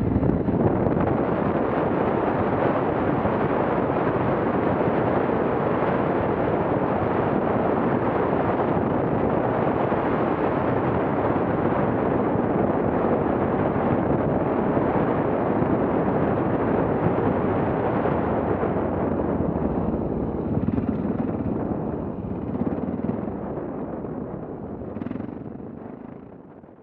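Loud rushing wind and road noise on the microphone of an adventure motorcycle riding a gravel forest road, steady at first and easing off over the last several seconds as the bike slows.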